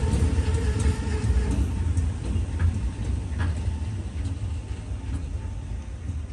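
A passing train's rumble fading as it moves away, with a few faint clicks in the middle.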